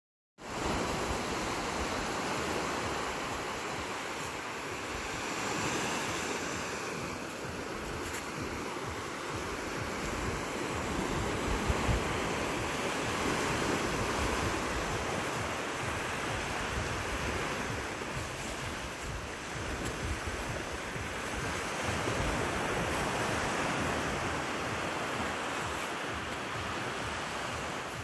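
Ocean surf washing onto a beach, a continuous rush that swells and eases every few seconds, with wind rumbling on the microphone.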